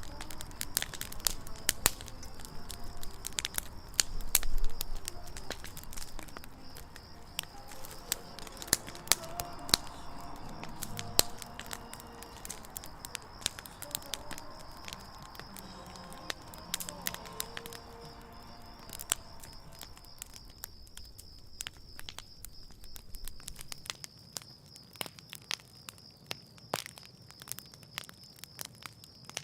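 Wood campfire burning, with irregular sharp pops and crackles from the logs over a low rush of flame. There is a louder surge of the fire about four seconds in, and the crackling grows quieter over the last five seconds.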